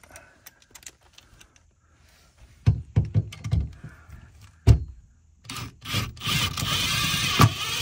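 A few thumps and knocks as the screw and cordless drill are set against the sofa's metal frame, then the cordless drill runs for about two seconds near the end, driving a screw through the frame into the camper's wooden floor.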